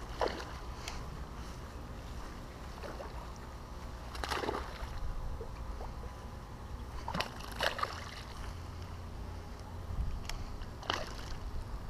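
A hooked fish thrashing and splashing at the water's surface close to the bank in several short bursts while it is played in on rod and line, over a steady low rumble.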